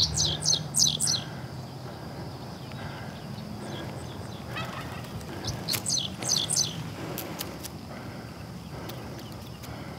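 Wild turkey yelping: two short series of about five sharp, high, falling notes, one at the very start and another about six seconds in.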